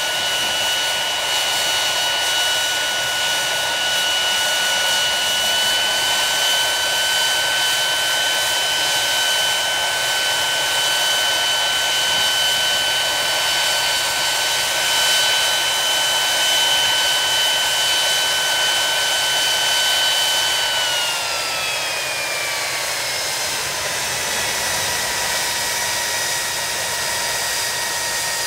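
Rolls-Royce Spey turbofan engines of a Hawker Siddeley Nimrod running on a static ground run: a steady rushing exhaust noise under a high whine. The whine rises slightly about six seconds in. About twenty seconds in it falls in pitch over a couple of seconds, then holds steady at the lower pitch as the engines wind down to a lower setting.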